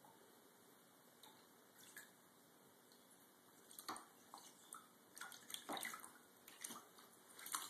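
Small splashes and drips in a thin layer of water in a bathtub as a cat paws at a goldfish. It is faint at first, then a run of short, sharp splashes starts about four seconds in and grows busier near the end.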